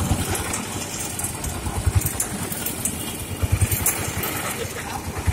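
Small engine driving a sugarcane juice roller machine, running steadily with a low pulsing chug that swells briefly about two seconds in and again a little past the middle.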